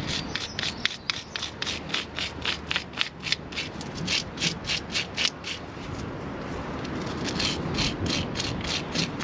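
Hand wire brush scrubbing corrosion off a brake disc retaining screw in quick back-and-forth strokes, about four a second, with a short pause partway through.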